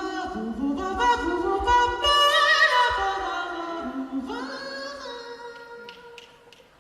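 A cappella group singing without instruments, a high lead voice climbing and wavering with vibrato over lower harmony voices, then fading out near the end.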